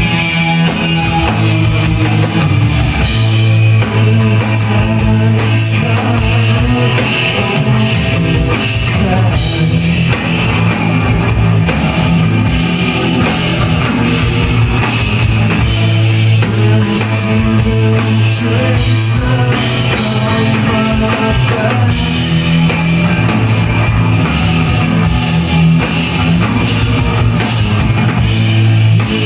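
Rock music with distorted electric guitar, drum kit and singing.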